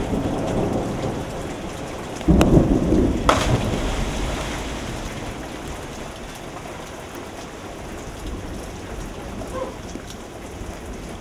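A loud, deep splash about two seconds in as a person plunges into a swimming pool, followed by water churning and heavy rain falling steadily on the pool surface.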